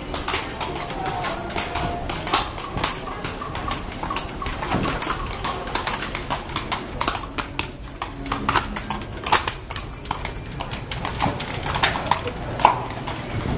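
Horse-drawn carriage passing over cobblestones: the horse's hooves clip-clop, mixed with many irregular clicks and knocks from the iron-rimmed wheels.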